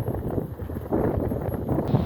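Wind buffeting the microphone: an uneven low rumble with crackles and no siren tone.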